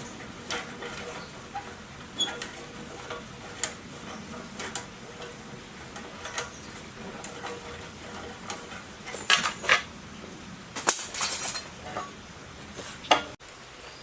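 Scattered light metallic clinks and knocks, as of metal parts and tools being handled, with a cluster of sharper knocks about nine to eleven seconds in.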